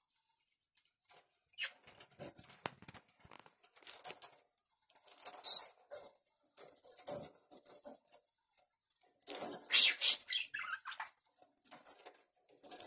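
A budgerigar playing with a hanging plastic toy and its small metal bell: a run of irregular clicks and taps with light bell jingles, and a denser, louder flurry about ten seconds in.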